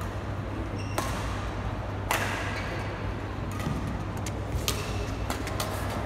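Badminton rally: sharp cracks of rackets striking a shuttlecock, two spaced about a second apart, then a quick run of hits and sharp sounds in the second half as the players move on the court. A steady low hum lies underneath.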